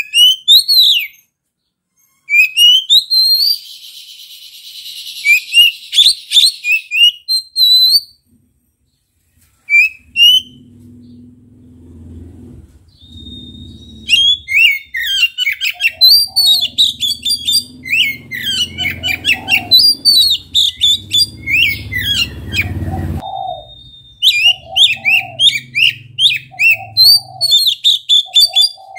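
Oriental magpie-robin (kacer) singing loudly: rapid phrases of varied high whistles, chirps and trills, broken by short pauses and one silence of about two seconds a third of the way in.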